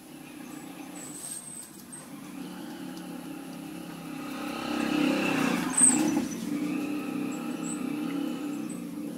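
A motor vehicle's engine running close by, growing louder to a peak about five seconds in and staying loud after. A single sharp click stands out near six seconds.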